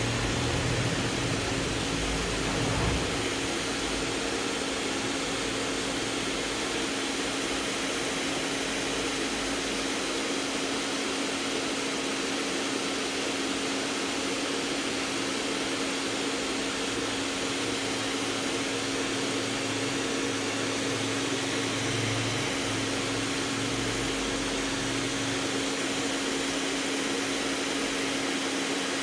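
Handheld hair dryer running steadily: a constant rush of air with a steady hum.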